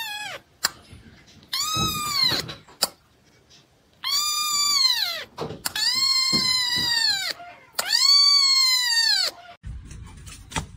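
Young kitten meowing loudly: four long, high-pitched meows about a second each, every one rising and then falling in pitch.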